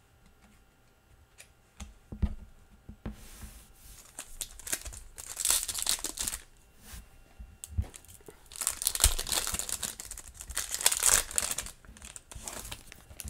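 A foil trading-card pack (2021 Panini Mosaic NFL) being torn open and crinkled in the hands, loudest in a long stretch of tearing and crackling in the second half. There are a few soft knocks about two seconds in.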